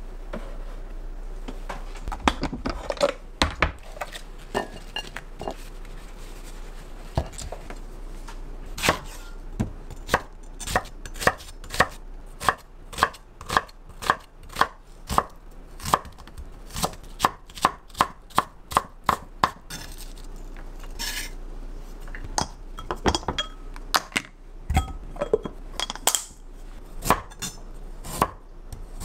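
Kitchen knife chopping on a cutting board: sharp knocks in an even run of about two strokes a second, with scattered, irregular cuts before and after.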